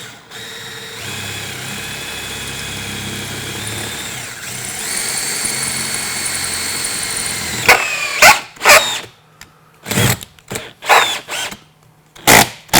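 Electric drill drilling out a latch rivet on a shipping case: a steady whine that steps up in speed twice. After about seven and a half seconds it gives way to a series of short, sharp bursts, as the drill is run in quick pulses or the rivet head breaks loose.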